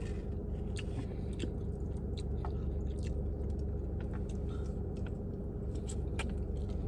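A person chewing a mouthful of tofu fried rice, with scattered small mouth clicks and soft crunches, over a steady low hum.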